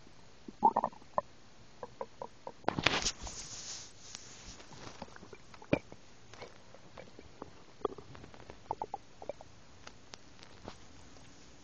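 Stomach growling in scattered short gurgles, which the uploader puts down to swallowed hard candy. A rustling scrape comes about three seconds in, and a sharp click near the middle.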